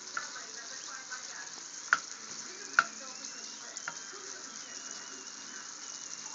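Diced apples in bubbling brown sugar and butter sizzling in a frying pan as a plastic spoon stirs them, with a few sharp knocks of the spoon against the pan, the loudest about two and three seconds in.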